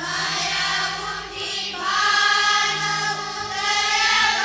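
Indian devotional bhajan singing over a steady held drone accompaniment, the voices drawing out long, gliding notes.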